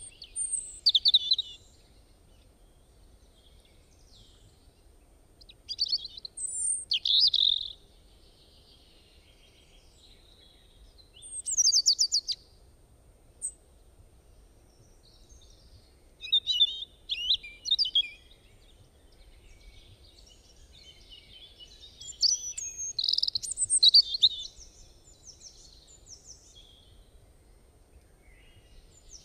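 Small birds chirping, in five bursts of quick high chirps and trills about five seconds apart, over a faint low hum.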